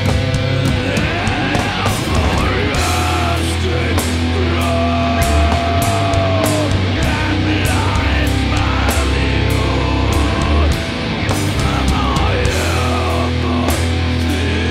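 Sludge metal band playing live: heavily distorted guitars and bass under drums with regular cymbal crashes, and a held, bending lead note about four to six seconds in.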